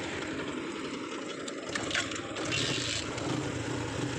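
TVS Apache motorcycle engine idling with a low, steady hum, with a few light clicks and a brief hiss a little past the middle.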